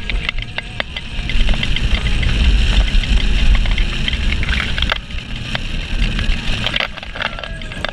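Roller coaster train running fast along its steel track, heard from the front seat: a steady heavy rumble and rattle with many sharp clacks.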